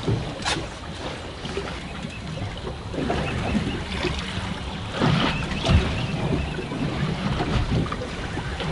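Water sloshing and slapping against a drifting boat's hull in a stiff wind, with a few knocks on board.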